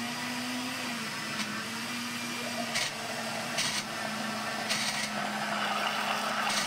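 Countertop blender motor running steadily, churning a thick cornmeal cake batter, with a few light knocks along the way.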